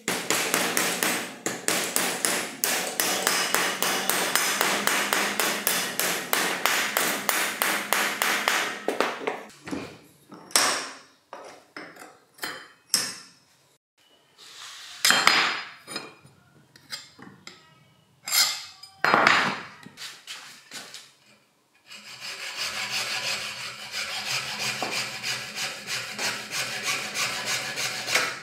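A wooden mallet strikes a thin sheet-metal bracket clamped in a steel bench vise, in rapid, steady blows for the first nine seconds or so. A few separate knocks and scrapes follow, with quiet gaps between them. From about three-quarters of the way in, a hacksaw cuts the plastic housing of a Makita HR2451 rotary hammer in steady back-and-forth strokes.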